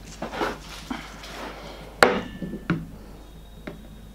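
Handling noises as a small plastic power adapter is fetched and handled: rustling, then a sharp knock on the wooden tabletop about two seconds in, a second knock shortly after, and a faint click near the end.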